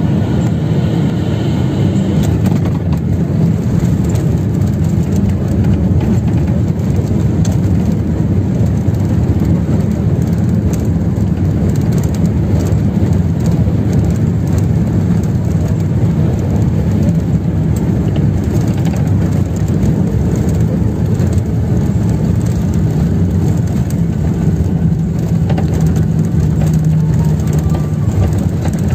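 Inside the cabin of a SpiceJet jet airliner rolling along the runway after touchdown: a steady low rumble of the jet engines and the wheels, with a faint steady hum.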